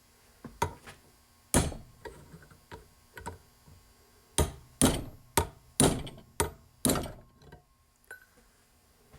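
Hammer blows on the seized bearing of a Case 224 mowing deck spindle as it is knocked loose from the shaft: about a dozen sharp strikes, lighter taps at first, then six hard blows about half a second apart, stopping about seven seconds in.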